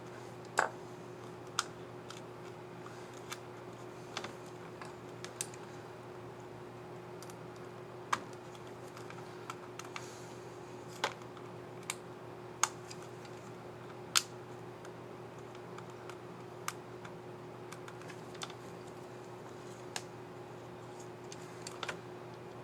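Irregular small plastic clicks from a laptop keyboard's keycap and scissor mechanism being handled, fitted and pressed, a dozen or so sharper ones among lighter ticks, over a faint steady hum.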